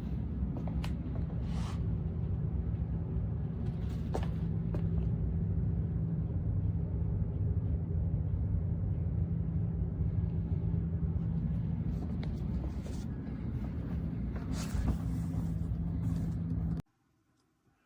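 A steady low machine hum with a constant drone and a few scattered clicks, cutting off suddenly about a second before the end.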